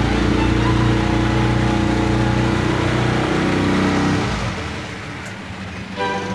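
Outboard motor of a small passenger boat running steadily, then dropping off in level about four seconds in.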